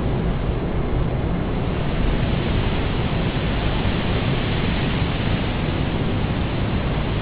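Steady, even rushing noise that runs on unchanged across the cuts, heaviest in the low end.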